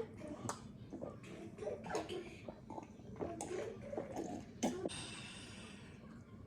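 Close-miked eating sounds from eba (cassava dough) and vegetable soup being eaten: wet chewing, lip-smacking and sharp mouth clicks, then a short breathy hiss about five seconds in.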